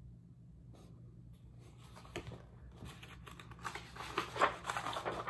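Pages of a large picture book being handled and turned, paper rustling and crackling with small clicks, growing louder towards the end.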